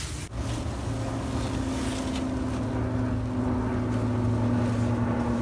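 A steady motor hum at an even, unchanging pitch, starting a moment in.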